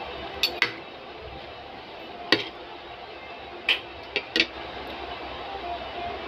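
Metal spoon clinking against a plate of rice and green beans while eating: about six short, sharp clicks scattered through the first half, over a steady background hum.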